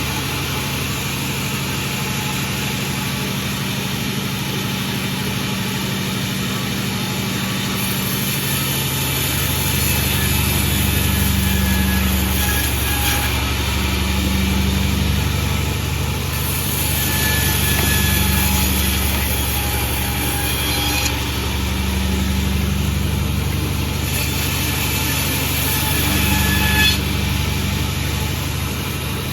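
Sawmill running steadily with a low engine drone. Three times it grows louder with a high hiss as the saw cuts through mahogany.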